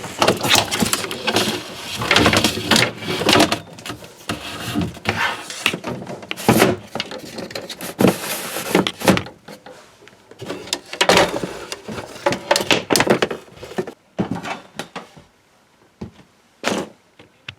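Irregular rustling, bumping and knocking as an outdoor extension cord is handled and fixed in place. It quiets near the end, apart from one last sharp knock.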